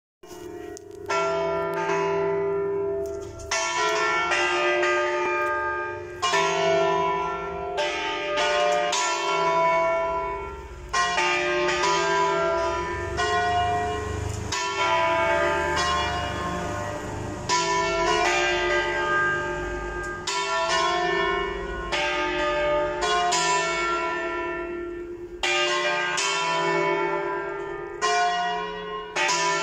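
Church bells rung 'a distesa': three bells (numbers 2, 3 and 4 of a five-bell ring tuned in C) swing freely, so their strikes fall at uneven, overlapping intervals with long humming tones. It is the bell call to weekday Mass.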